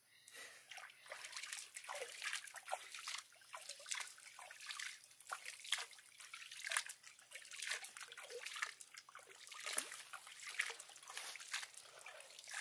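Small, irregular splashes and drips of water as a monkey paddles its hand in pool water.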